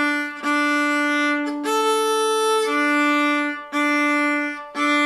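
Violin bowed on its open strings in long, steady notes about a second each, with a short break at each bow change: open D over and over, and a single open A about two seconds in. These are bowing exercises played without left-hand fingers.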